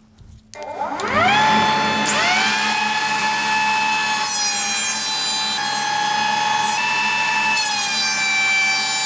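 Makita benchtop thickness planer switched on, its motor whine gliding up as it spins up about a second in, then running steadily. From about four seconds in, a harsher high rasp joins as a pine board is fed through and planed.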